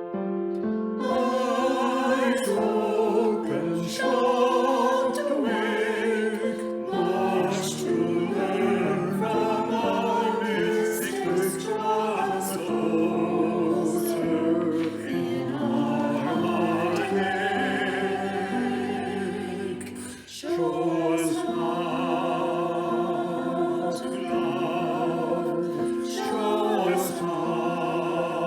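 Choir singing sacred music, with one short break about twenty seconds in.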